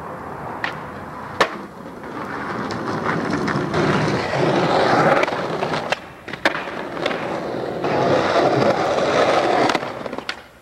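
Skateboard wheels rolling over concrete, with sharp clacks of the board popping and landing. There are a couple of single clacks in the first two seconds, then rolling that grows louder, a cluster of clacks about six seconds in as a flip trick comes down, and then more rolling.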